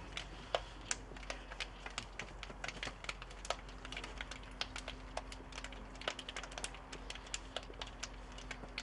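Many sharp, irregular hand slaps and claps, several a second, as players high-five and shake hands along a pre-match line.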